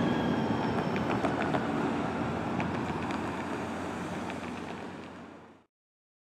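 Muni light-rail train and street traffic going by, a steady rumble with a faint high wheel squeal that dies away in the first half second. The sound fades down and cuts to silence near the end.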